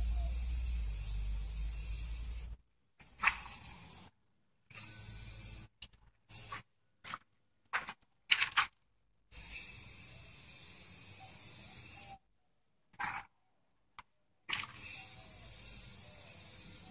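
Aerosol spray can of self-etching primer spraying in about five bursts of hiss, each one to three seconds long. A few short, sharp clicks and knocks fall between the sprays.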